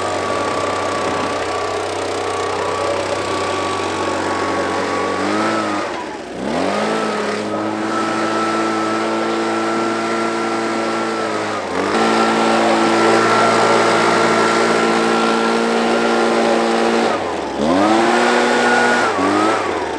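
Handheld two-stroke gas blower running at high speed, blasting sawdust off a portable bandsaw mill. Its engine note dips and climbs back twice, about six seconds in and again near the end, and it is louder from about halfway.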